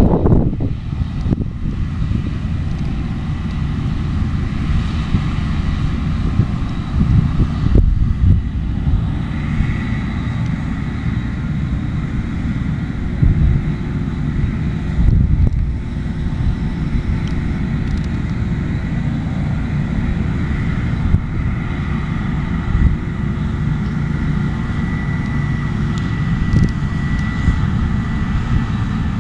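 New Holland CX8070 combine harvester running steadily while harvesting barley: a continuous engine and threshing-machinery drone with a steady high whine that grows clearer about a third of the way in.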